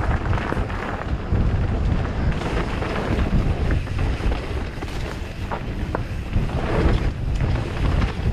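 Wind buffeting the microphone over the rumble and rattle of a mountain bike riding fast down a dusty dirt trail, with a few faint short ticks in the middle.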